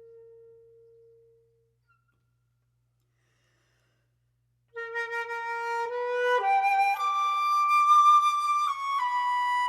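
Solo flute: a held low note fades away, and after about three seconds of silence a new phrase begins, climbing through several notes.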